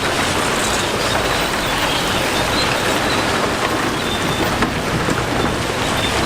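Loose stone pouring and rattling out of a tipping dump truck bed: a steady, dense, rain-like hiss over machinery noise.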